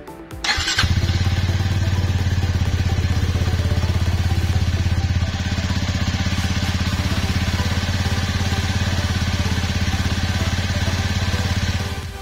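Suzuki Gixxer 250's single-cylinder engine starts with a short crank about half a second in, catches, and idles steadily before being switched off near the end. It is being run briefly to circulate fresh oil after an oil change.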